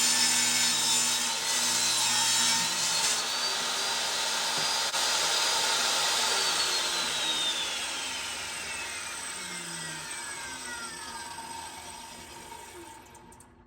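Power saw ripping wood lengthwise. About halfway through it is switched off and the blade winds down, its pitch falling steadily as the sound fades away.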